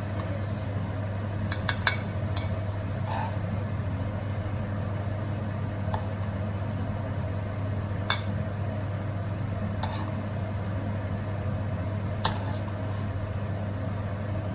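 A handful of sharp clinks of a cooking utensil against a pan, a few close together near the start and then single ones spaced several seconds apart, over a steady low hum.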